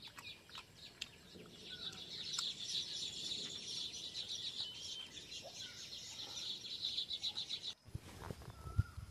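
Chickens clucking with other birds calling, a rapid chatter that goes on for several seconds and stops abruptly near the end.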